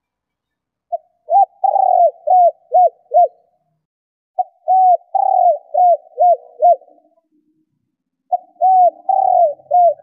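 Female spotted dove call: three phrases of cooing, each made of five or six short coos that rise and fall in pitch, the phrases a second or two apart.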